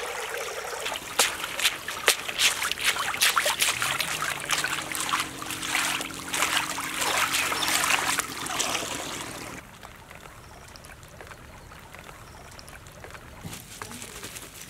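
Water splashing and trickling around a wicker basket of small live river fish, with a dense crackle of the fish flapping against each other and the wicker. About ten seconds in it drops abruptly to a quieter, sparser patter of flapping fish.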